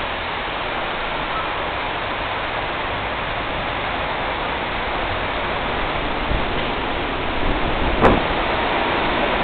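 Heavy rain falling in a thunderstorm, a dense steady hiss, with a single sharp click about eight seconds in.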